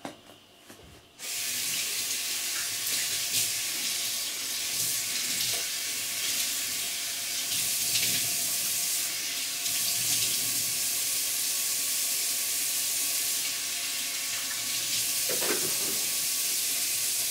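Loud, steady rushing hiss that starts abruptly about a second in, with a few faint steady tones underneath.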